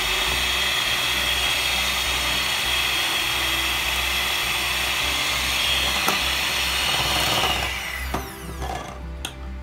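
Electric hand mixer beating eggs, its motor running steadily with a whine, then winding down with a falling pitch about eight seconds in.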